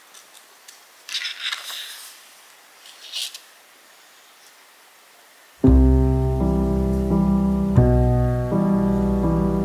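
Pages of a large book turned by hand: paper rustling twice in the first few seconds. Then soft piano music starts a little over halfway through and carries on as the loudest sound.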